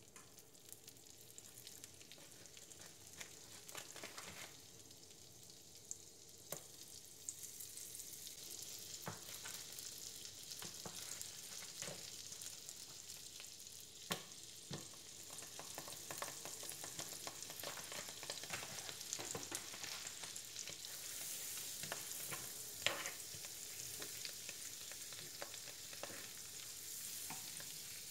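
Margarine melting and sizzling in a nonstick frying pan, the sizzle growing louder as the fat heats, with a few sharp taps of utensils against the pan.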